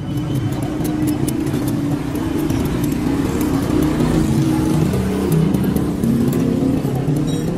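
Steady motor-vehicle traffic noise, engines running without a break, with faint light clicks of steel spokes being handled in a motorcycle wheel.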